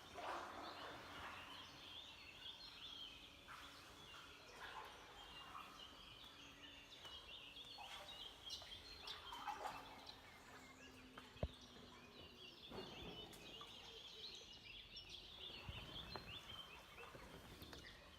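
Faint chorus of small birds chirping and singing, many short high calls overlapping, with a single sharp click about halfway through.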